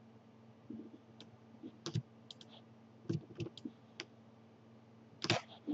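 Computer mouse and keyboard clicking: a dozen or so short, irregular clicks, the loudest near the end.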